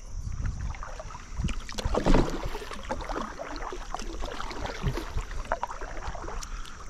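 Kayak paddle strokes in river water: the blade dips and pulls with irregular splashes and drips, the loudest stroke about two seconds in.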